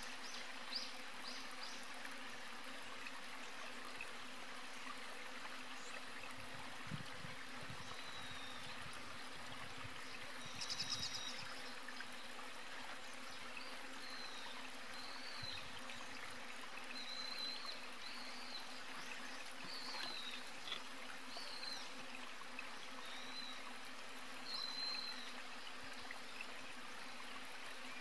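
Outdoor nature ambience: a steady hiss like insects or running water, with a faint low hum under it. Short high chirps come and go throughout, with a brief louder trill about 11 seconds in.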